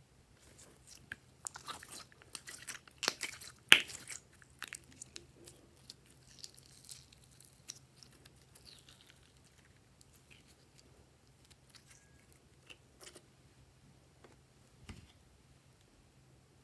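Glossy slime being squished and stretched by hand: a run of small sticky clicks and pops, densest and loudest in the first few seconds, then only scattered ones, with a soft knock near the end.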